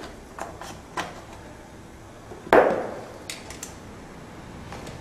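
A tyre lever working a mountain-bike tyre's bead onto a tubeless rim: small clicks and scrapes, and one loud sharp snap about two and a half seconds in.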